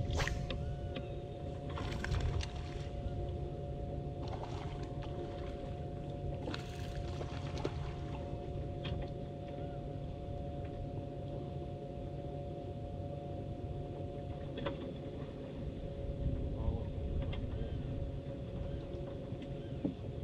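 An electric trolling motor's steady whine, two tones, the higher of which drops out about two-thirds of the way through, over a low rumble of wind and water. A sharp swish as a spinning rod is cast at the start, followed by a few brief rustles in the first several seconds.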